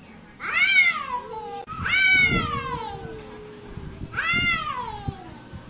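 A cat meowing three times, long drawn-out meows that rise and then fall in pitch.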